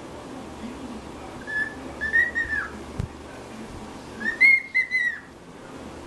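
Cockatiel whistling two short phrases a couple of seconds apart, each a few quick notes at about the same pitch, ending on a falling note.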